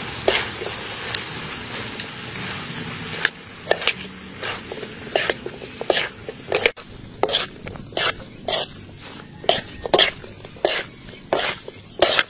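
Spatula scraping and knocking against a wok as noodles, bok choy and pig liver are stir-fried, over a steady sizzle. The strokes start about three seconds in and come about twice a second.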